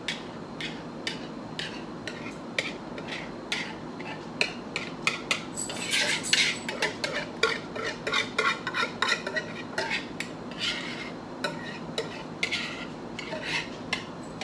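A kitchen utensil scraping and clinking against a bowl and baking dish in quick, irregular strokes, as the last of the green bean casserole mixture is scooped out and spread.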